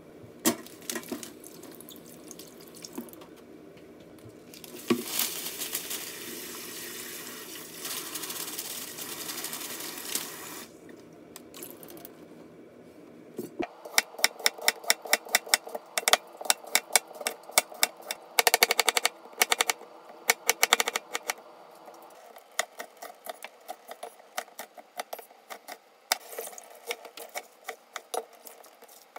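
Tap water runs into a stainless-steel sink for several seconds. About halfway through, a kitchen knife starts chopping a carrot on a stainless-steel cutting board in quick, even, clacking strikes, then goes on more lightly chopping garlic chives.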